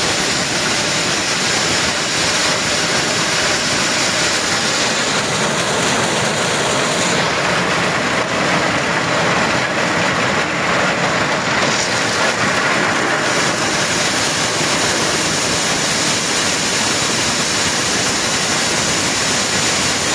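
Tractor-powered corn sheller running at a steady pace: a loud, even rushing noise of the threshing machine at work, unchanging throughout.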